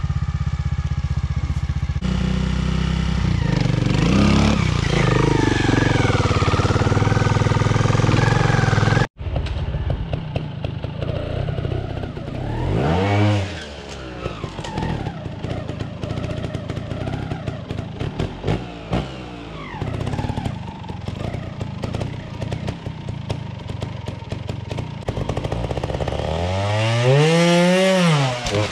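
Trials motorcycle engines. One bike runs loudly close by for the first nine seconds. After a brief break in the sound, engines crackle and blip, and a rev climbs and falls about 13 seconds in and again near the end.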